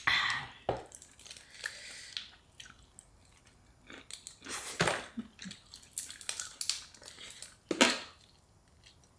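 Close-up eating of boiled crawfish: chewing, biting and sucking, in irregular short bursts.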